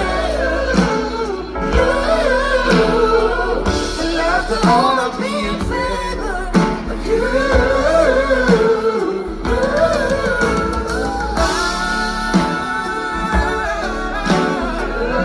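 Live rock band playing, with held sung notes over drums and guitar.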